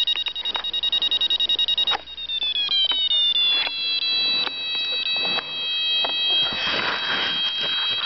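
Paragliding variometer beeping: fast high beeps, about six a second, change about two seconds in to a steady high tone that slides down a little and then holds. Bursts of rustling from the harness being handled come in about two-thirds of the way through.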